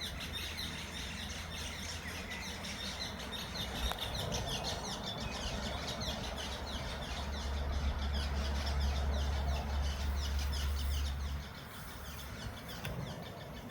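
Small birds chirping rapidly and continuously, over a low rumble that is loudest in the middle and drops off suddenly a little past eleven seconds in.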